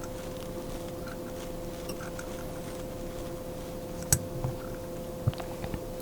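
Steady low hum with a few small clicks and taps of hands handling jig-tying materials and tools. The loudest is a sharp click about four seconds in, then a dull knock a little after five seconds.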